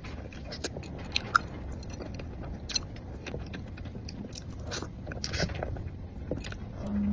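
Close-miked eating of a pistachio cream crepe cake topped with crunchy nuts: biting and chewing, with scattered small crunches from the nuts.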